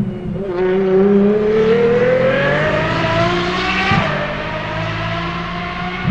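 Apollo IE's naturally aspirated V12 accelerating hard, its note climbing steadily for about three seconds, then dropping sharply about four seconds in at a gear change before pulling on at the lower pitch.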